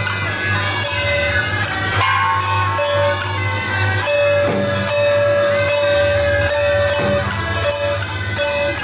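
Music with a steady beat and long held notes over a low drone.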